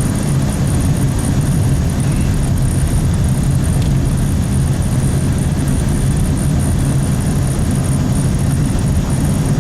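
Truck driving, a steady engine hum and road noise heard from inside the cab.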